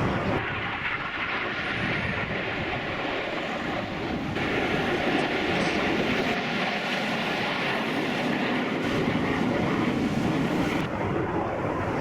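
Aircraft engine noise: a steady, loud rushing din that changes abruptly a few times.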